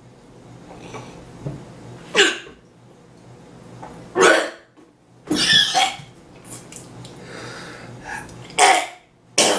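A man with a mouthful of Nutella coughing and spluttering in about five short bursts, one of them longer, with quieter breathing between.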